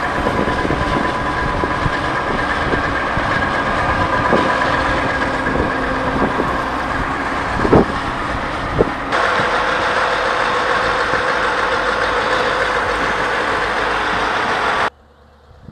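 Scania truck's engine running steadily, with a few sharp clicks in the middle. The sound turns brighter about nine seconds in and stops abruptly near the end.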